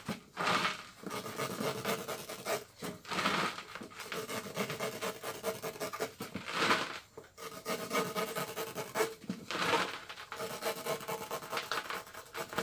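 Knife cutting through a car tyre's rubber sidewall along the bead, an irregular scraping and rubbing with several louder strokes a few seconds apart.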